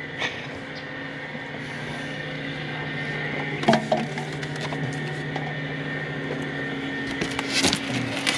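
Steady machine hum holding several even tones, with a few short clicks and knocks over it, a cluster of them near the end.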